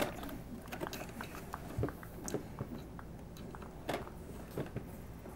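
Small clicks and taps of fingers working a crimp connector onto a toggle switch's spade terminal and handling wires against a plastic toolbox lid. Scattered light ticks, with a sharper knock about four seconds in.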